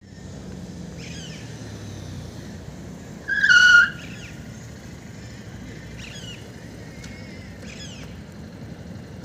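Birds calling in short chirps several times over a steady low rumble, with one loud, high, clear call lasting about half a second a little past three seconds in.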